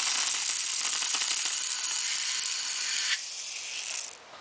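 Compressed air at 125 psi hissing through a homemade airsoft machine gun as it fires, with a rattle of BBs through the blast. The hiss drops to a weaker flow about three seconds in and fades out near the end.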